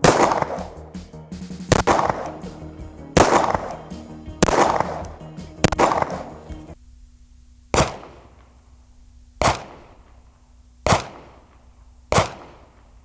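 Nine single 9mm rounds from a CZ75 pistol, heard at the target end as they hit muddy earth: sharp cracks about one and a half seconds apart, each with a short decaying tail. Background music plays under the first half.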